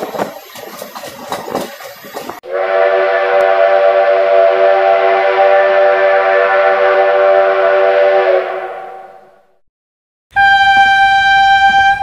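A train running with a rattling clatter, cut off after about two seconds by a train horn sounding one long chord of several tones for about six seconds before fading away. After a moment of silence a single-pitched train whistle blows near the end.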